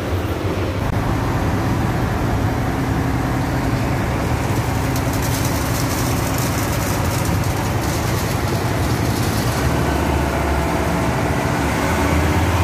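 Construction machinery used to pour a concrete floor, a concrete mixer and a crane, running steadily with a low engine hum. Midway, a harsher high hiss and rattle joins for a few seconds.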